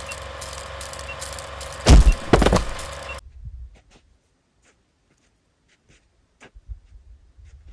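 A steady mechanical hum with two heavy thumps close together about two seconds in. The hum then cuts off abruptly, leaving near silence broken by a few faint clicks.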